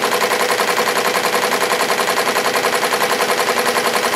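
SWF multi-needle embroidery machine stitching through the back of a cap, running at a steady, fast, even rhythm of about ten stitches a second.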